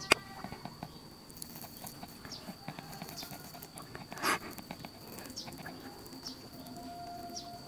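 Quiet handling and eating of a crisp fried sausage-and-cheese roll: a sharp click at the start, small scattered ticks and a brief crunch about four seconds in, over a steady faint high-pitched tone.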